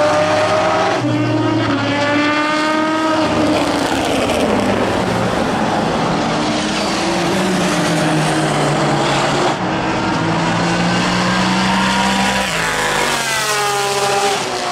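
GT and LMP prototype race cars driving past on a soaked track, their engine notes climbing through quick upshifts about a second in and again near the end, over a steady hiss of tyre spray and rain.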